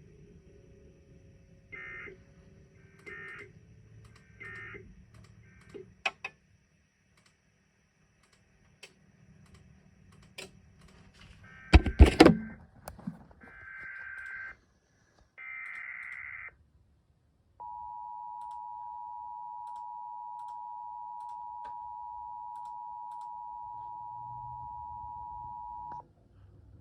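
Emergency Alert System signals: three short end-of-message data bursts, then after a pause a loud thump, then three longer SAME header data bursts. These are followed by the steady two-tone EAS attention signal, lasting about eight seconds, which cuts off just before the end.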